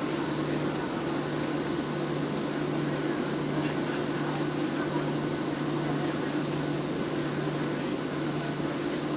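Steady cabin drone of a Southwest Airlines Boeing 737 heard from inside the passenger cabin: engine and air-system noise with a constant low hum, unchanging throughout.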